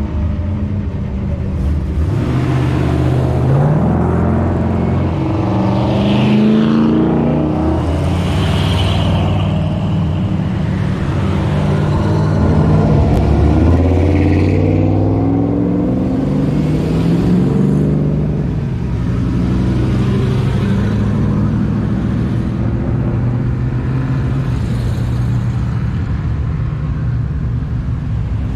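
A line of classic Chevrolet C10-type pickup trucks driving slowly past one after another, their engines running and revving, the pitch rising and falling as each truck goes by; the loudest pass is about thirteen seconds in.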